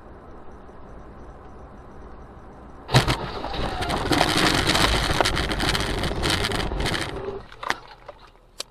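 Steady road noise inside a moving car, then about three seconds in a sudden loud bang as the semi-truck ahead crashes, followed by some four seconds of gravel, dirt and debris pelting the car. The clatter dies away, leaving a couple of sharp single hits near the end.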